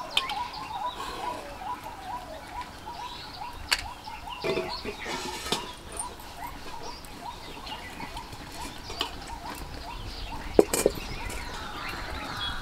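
Rapid, repeated small chirping calls from an animal in the background, thinning out after the first few seconds, with scattered light knocks. About ten and a half seconds in, a sharp metal clank: a metal wok set down on a clay stove.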